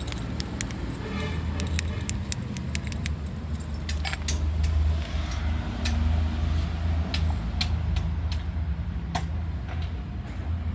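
A bunch of car keys jangling with a run of sharp clicks, over a steady low hum.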